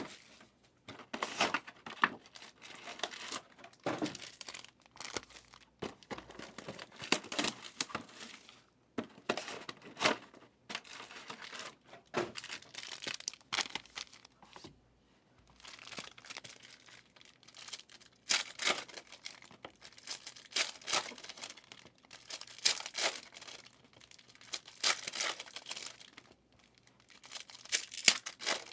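Trading-card pack wrappers being torn open and crinkled by hand, in short irregular rips and crackles with brief pauses between them.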